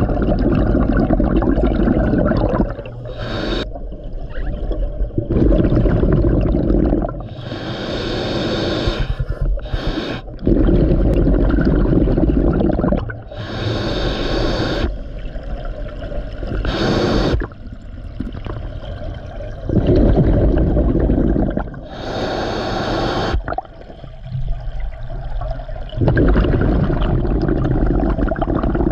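Scuba diver breathing through a regulator underwater: a short hissing inhale, then a long rumble of exhaled bubbles, repeating every few seconds.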